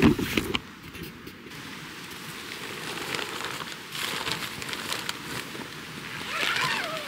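Crackly rustling and crunching from someone walking outside with the camera in hand, many small irregular ticks over a steady hiss. A short hummed voice slides down near the end.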